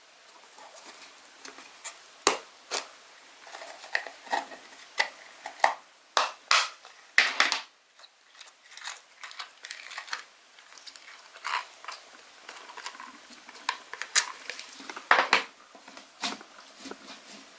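Slime being squished and pressed by hand, giving irregular sticky pops and crackles.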